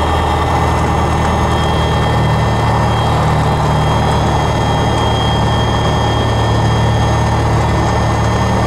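Piper PA-28's piston engine and propeller running steadily at low power, heard inside the cockpit as a loud, even drone.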